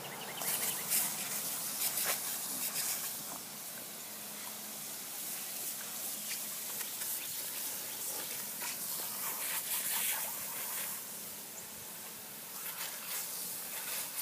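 Water hissing and spraying from a leak in a garden hose onto concrete, with irregular splashing.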